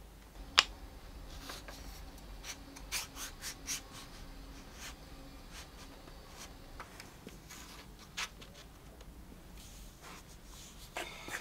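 Fingertips pressing and sliding grey MDF filler strips into the miter slots of a cast iron router table top: faint rubbing and scraping with scattered soft clicks, the sharpest about half a second in and again near eight seconds.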